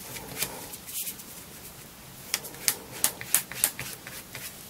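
White plastic spatula scraping over the flesh side of chrome-tanned leather as Tokonole is spread on it: short dry scrapes and ticks, with a quick run of them in the middle.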